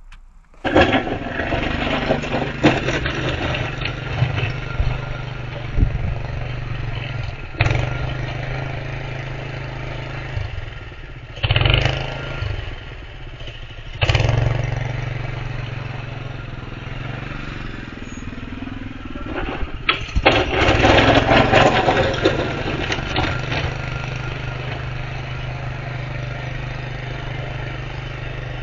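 Honda GX160 5.5 hp single-cylinder four-stroke engine on a homemade snow plow, running steadily while the plow pushes through wet snow. It is heard through a security camera's microphone. The sound comes in about a second in and jumps in level a few times.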